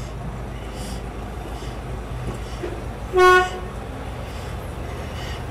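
A single short locomotive horn toot, about a third of a second long, a little past halfway through. Under it, the steady low running of the diesel shunter's engine as it moves the power bogie.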